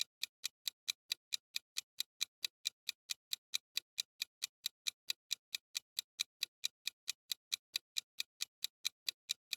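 Countdown timer sound effect: a clock-like tick repeating evenly, about four to five ticks a second, marking the time to answer a quiz question.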